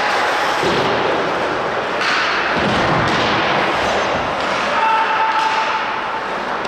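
Ice hockey game sound in the rink: a steady wash of play noise with thuds from the puck, sticks and boards, and voices calling out.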